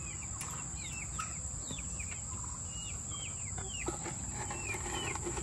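Chickens peeping and chirping in a run: a string of short, high, falling chirps, about two a second.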